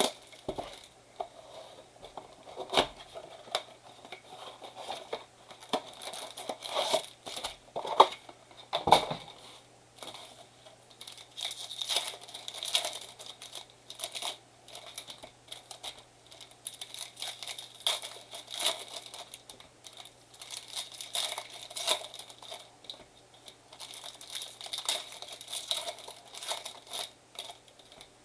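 A 2023 Bowman baseball card blaster box being torn open and its foil card packs ripped and crinkled: sharp cardboard snaps and tears in the first ten seconds or so, then steady crinkling and rustling of pack wrappers.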